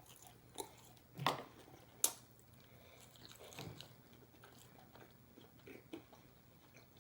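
A person chewing and biting fried chicken strips and fries close to the microphone: quiet, irregular crunches and wet mouth clicks, with a sharp click about two seconds in.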